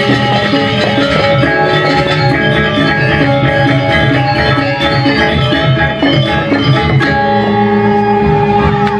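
Balinese gong kebyar gamelan playing a fast, dense passage on bronze metallophones, gongs and drums. About seven seconds in, the ensemble settles onto longer held notes.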